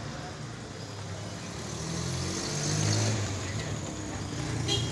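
Motor vehicle running with road noise, a low steady hum that swells about halfway through. There is a short sharp click near the end.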